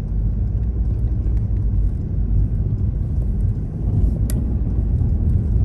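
Steady low rumble of a car driving, heard from inside the cabin, with one brief sharp click about four seconds in.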